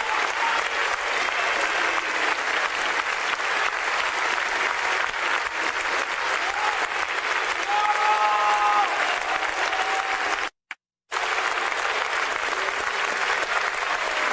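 Concert-hall audience applauding, a dense, steady clapping, with a few brief calls rising above it near the middle. The sound cuts out completely for about half a second some two-thirds through.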